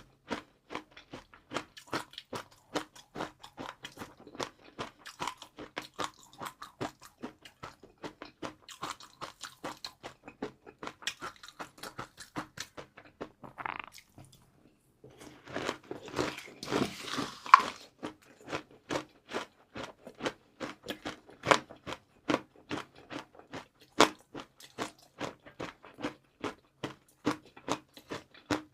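Close-miked chewing of crispy fried noodles: a steady run of sharp crunches, two or three a second. There is a short pause about halfway through, then a few seconds of denser, louder crunching before the regular chewing resumes.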